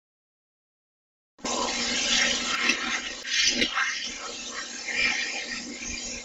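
EVP recorder playback of a loud, rushing hiss, starting suddenly about a second and a half in after dead silence and cutting off abruptly at the end. The investigators present it as a spirit voice saying "bullshit, she likes me... me".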